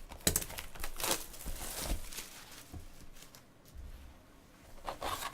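Crinkling and rustling of trading-card pack wrappers and cards being handled, in a series of short scratchy bursts with a quieter stretch in the middle.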